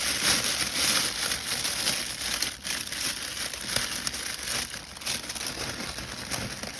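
Plastic shrink-wrap crinkling steadily as it is handled and gathered around a gift.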